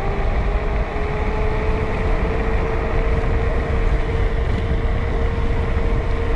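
Varla Eagle One 2.0 electric scooter's dual motors whining in a steady tone that climbs slowly in pitch during a flat-out speed run of about 31 mph, under heavy wind rumble on the microphone.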